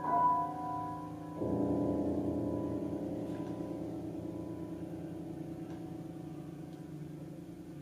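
Grand piano: a note struck right at the start, then about a second and a half in a chord struck and left ringing, slowly dying away.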